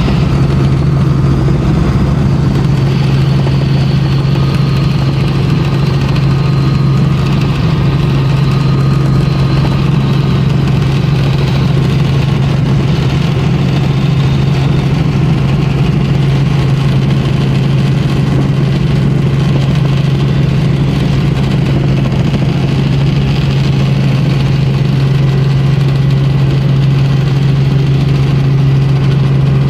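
Helicopter in flight, heard from inside the cabin: a loud, steady drone with a strong low hum and a faint high whine.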